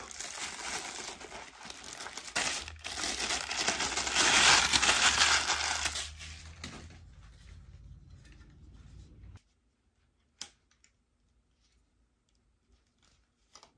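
Close handling noise while a selfie stand is set up: dense rustling and scraping of cloth and equipment right at the microphone, loudest about four to six seconds in. The noise cuts off abruptly about nine seconds in, leaving a few faint clicks, one sharper about ten seconds in.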